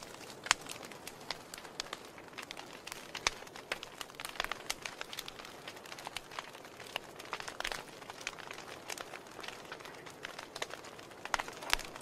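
Wood fire in a fireplace crackling, its logs burned down to glowing embers: irregular sharp pops and snaps over a soft hiss, with a louder pop about half a second in and a cluster of loud snaps near the end.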